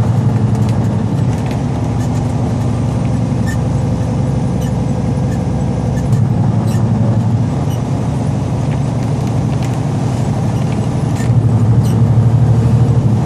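Diesel engine of a loaded semi-truck droning steadily under way, heard from inside the cab, swelling louder a few times, with scattered faint ticks over it.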